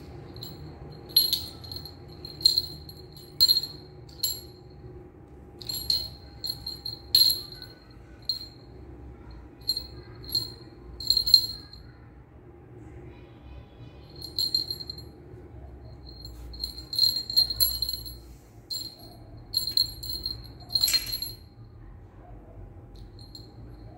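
A small metal jingle bell jingles in short, irregular bursts as a kitten bats it and chases it across stone stairs, with brief pauses between the bursts.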